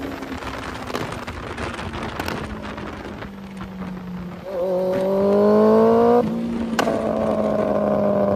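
Honda CBR600 sportbike's inline-four engine under way, with wind rushing over the microphone. Just past halfway the engine pitch climbs steadily as the bike accelerates, then drops abruptly at an upshift and runs on steady.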